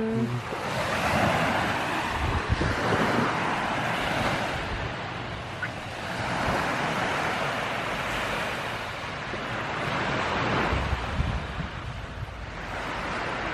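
Ocean surf washing onto the shore, swelling and fading every few seconds, with wind buffeting the microphone.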